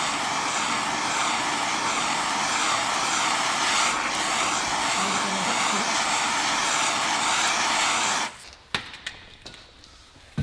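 Steady rushing hiss of a handheld heat tool heating a rusted brake rotor hub to free the rotor. It cuts off suddenly about eight seconds in, followed by a few light knocks.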